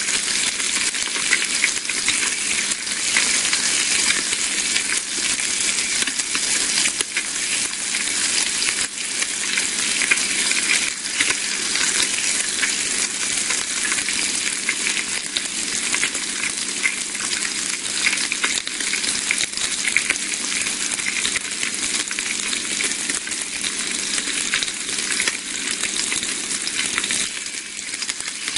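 Bacon sizzling in a frying pan: a steady, dense crackle and hiss of spitting fat.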